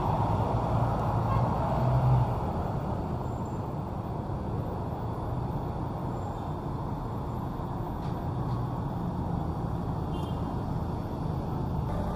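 City road traffic: cars and motorbikes passing close by in a steady low rumble of engines and tyres, with one vehicle passing loudest about two seconds in.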